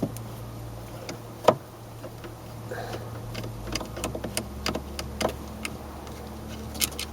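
Scattered clicks and light knocks of a screwdriver and plastic parts as the T15 screws holding a steering-column multifunction switch are taken out and the switch is worked loose, with one sharper knock about one and a half seconds in and a run of small ticks near the end.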